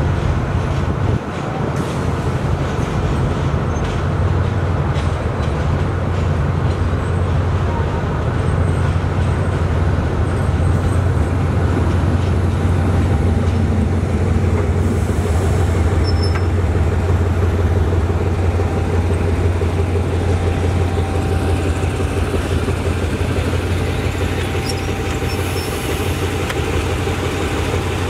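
Diesel trains moving on the tracks close by: a steady low diesel engine drone over the rumble of wheels on the rails, without a break.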